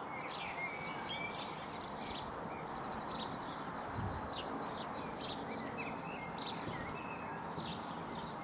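Small birds chirping and calling repeatedly over a steady outdoor rush of background noise.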